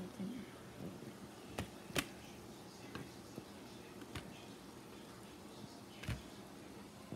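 Metal kitchen tongs clicking and tapping against a pot and a paper plate as boiled eggplants are lifted out of the water: a few sharp clicks, the sharpest about two seconds in, and a softer knock near the end, over a faint steady hiss.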